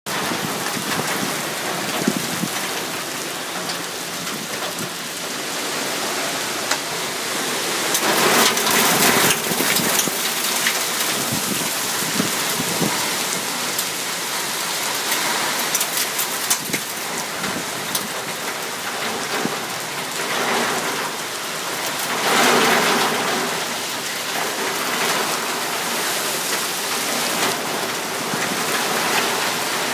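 Heavy cyclone rain pouring down onto flooded ground. It runs as a dense, steady hiss that swells louder about eight seconds in and again around twenty-two seconds.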